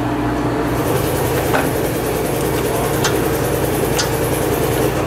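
Heavy truck batteries being slid and lifted out of their battery box: a few sharp clicks and knocks over a steady mechanical drone.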